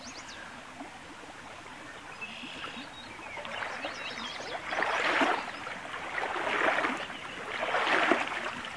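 A hooked trout splashing at the surface of a shallow creek as it is played in and grabbed by hand, over the steady running of the water. The splashing grows in the second half, with three loud surges.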